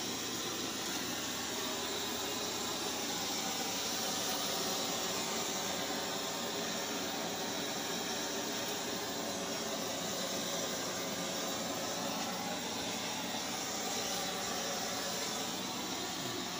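A steady, even hiss that holds unchanged throughout.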